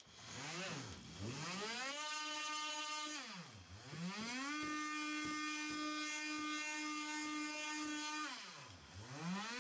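Ryobi cordless oscillating multi-tool with a sanding pad, sanding dried wood filler smooth on a cabinet: a steady high-pitched motor buzz. Twice it is switched off and on again, its pitch falling as it winds down about three seconds in and again near the end, and rising as it spins back up.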